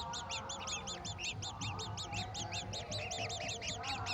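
Birds calling: a fast, evenly repeated run of high chirps, about nine a second, over lower nasal calls.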